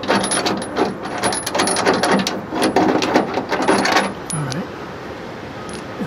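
Rapid metallic clicking and rattling for about four seconds, then it stops: the steel cab door pillar of a 1964 Ford F100 being pushed and pulled by hand to test a freshly tapped 10-32 screw mount.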